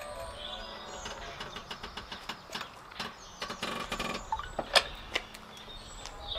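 Blue trolley jack being worked by its long handle to lower the car: a run of metallic clicks and knocks, with one louder knock about five seconds in.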